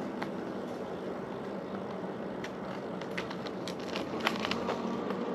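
Bicycle riding along a trail: a steady rush of tyre and wind noise with scattered clicks and crackles, most of them in the second half.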